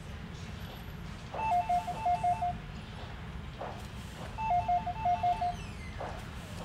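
Phone call ringing: two short electronic rings, each a quick trill of two alternating tones, about three seconds apart.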